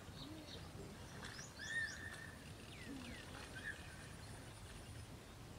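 Birds chirping and whistling in short calls, the loudest a little under two seconds in, over a faint steady high-pitched insect drone that stops near the end and a low background rumble.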